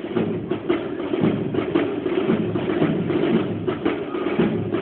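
Navy band playing a march, with a bass drum beating a steady marching cadence.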